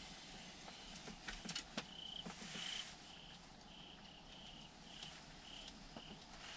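Faint insect chirping in quiet woods: a short, high chirp repeating about twice a second, with a few soft clicks and a brief rustle about a second in.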